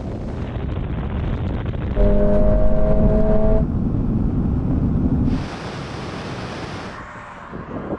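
Toyota sports cars accelerating hard down a runway. An engine note is held at a steady pitch for about a second and a half, starting about two seconds in, over a constant rumble of engine and tyre noise. A short rush of wind noise follows past the middle.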